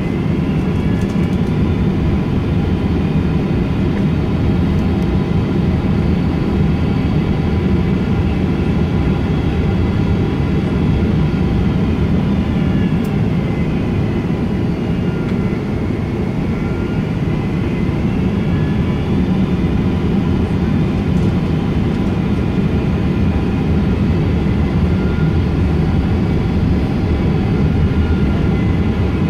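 Boeing 777-200 airliner on approach, heard from inside the cabin: a steady jet engine and airflow rumble with high engine whine tones that slide down and then back up again about halfway through as the thrust changes.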